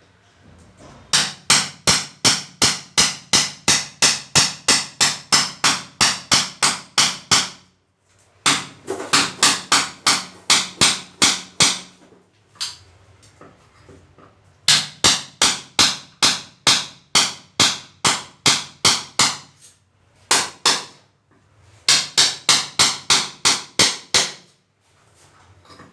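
Rapid, even hammer blows, about three a second, in four runs with short pauses between them.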